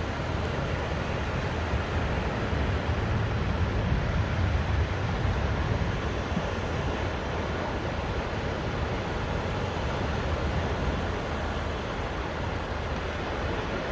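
Small, gentle waves washing onto a sandy beach: a steady hiss of surf over a low rumble of wind on the microphone. The surf swells a little about four seconds in.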